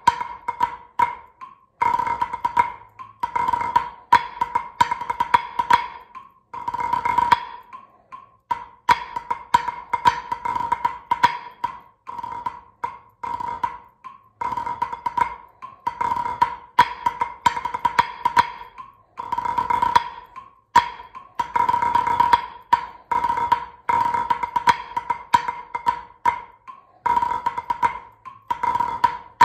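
Wooden drumsticks playing a rudiment exercise on a practice pad at 76 bpm. The strokes come in short phrases, one to three seconds long, with brief rests between them, and their loudness rises and falls as the exercise works on dynamics.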